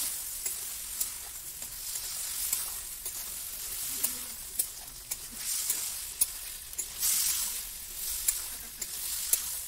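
Pork, potatoes and greens sizzling in a metal wok over a wood fire while being stirred with a metal spatula. The sizzle swells and fades in waves, with frequent sharp clicks of the spatula striking the pan.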